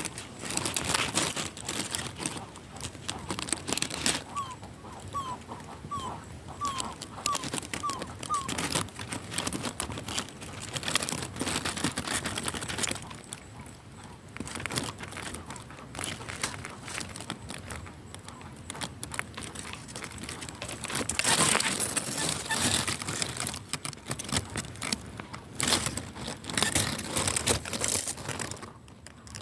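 Crackling and rustling runs all through. A few seconds in there is a run of about seven short rising calls, about two a second, which the title puts down to a jacu (guan).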